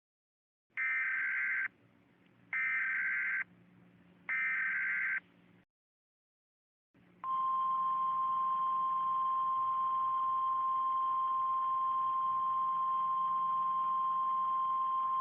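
Emergency Alert System SAME header: three bursts of warbling data tones, each about a second long, followed after a short gap by the steady single-pitch 1050 Hz NOAA Weather Radio warning alarm tone, announcing an Emergency Action Notification.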